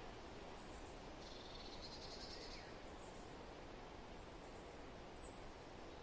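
Soft, steady wind noise. About a second in, a high, finely pulsed trill sounds for about a second and a half, with a few faint high chirps near the end.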